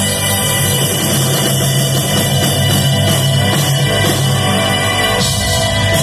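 Loud live rock band playing on stage, picked up from within the crowd.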